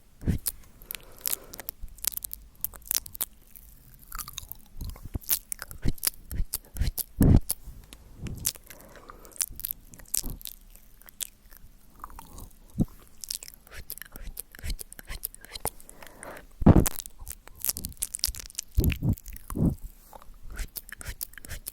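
Close-miked ASMR mouth sounds: wet clicks, pops and smacks of lips and tongue at an irregular pace, a few of them louder, with soft breathy sounds between.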